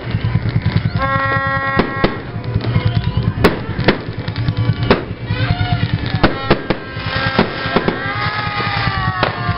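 Fireworks going off: a series of sharp bangs at irregular intervals, roughly one every half second to a second, over a steady din of music and voices.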